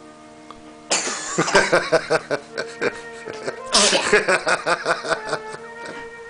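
Two sneezes, one about a second in and another near four seconds, each starting suddenly and trailing off over a couple of seconds. Music plays steadily underneath.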